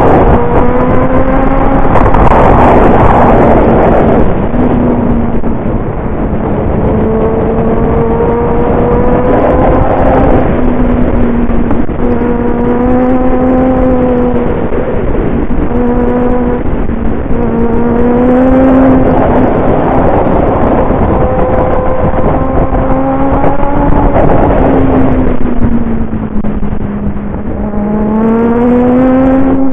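Motorcycle engine under way, heard from the bike itself: its pitch climbs again and again with short breaks between climbs as it accelerates through the gears, drops away near the end and then rises once more. A steady rush of wind and road noise runs underneath.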